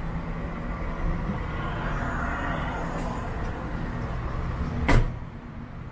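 Road traffic on a downtown street: a steady low rumble of passing vehicles, with one short, sharp bang about five seconds in.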